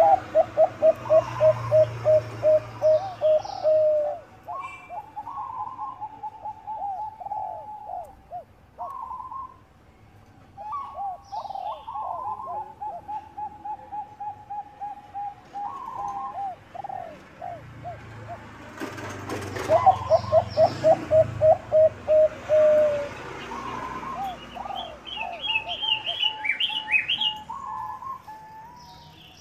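Bangkok-strain zebra doves (perkutut) cooing: fast runs of short staccato coos, loudest at the start and again about 20 seconds in, with softer coo phrases in between.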